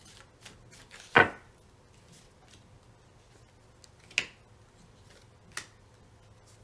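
Tarot cards being drawn from a deck and laid down on the table: three sharp clicks of card against card and table, the loudest about a second in, the others about four and five and a half seconds in, with a few fainter ticks between.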